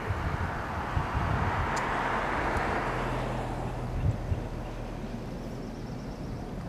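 A vehicle passing by: a rushing swell that rises over the first two seconds and fades away, over a steady low rumble with a couple of low thumps.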